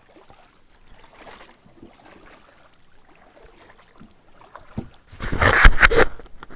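Kayak paddle strokes, with faint splashing and water dripping off the blade. About five seconds in, a loud cluster of knocks and scraping as the kayak and paddle come up against the concrete bridge pier.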